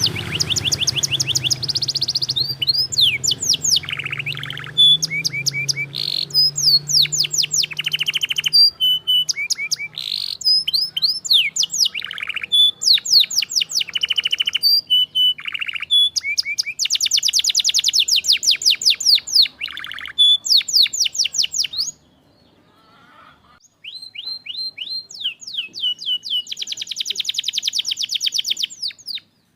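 Domestic canary singing a long, varied song of fast trills and rapidly repeated high notes, with a break of about two seconds roughly two-thirds of the way through.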